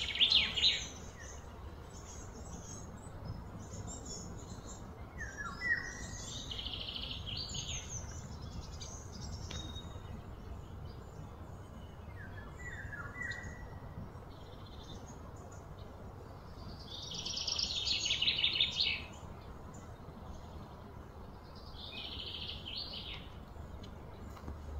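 Birds calling: several short, rapid trills, the loudest near the start and again about three-quarters through, with a few thin chirps in between, over steady low background noise.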